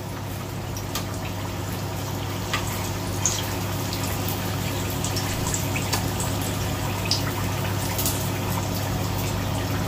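Sambusa deep-frying in hot oil in a small pan: a steady sizzle over a constant low hum. A metal slotted spoon gives a few light clicks against the pan now and then.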